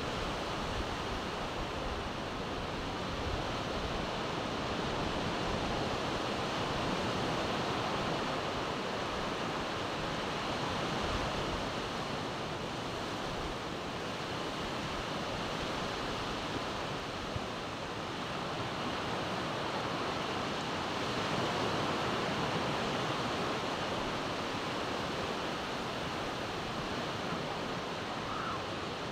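Sea surf breaking and washing up a sandy beach: a steady rush of waves that swells and eases slowly, with wind rumbling on the microphone.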